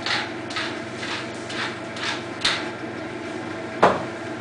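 Wooden pepper mill grinding, six short rasping twists about twice a second, followed near the end by a single sharp knock.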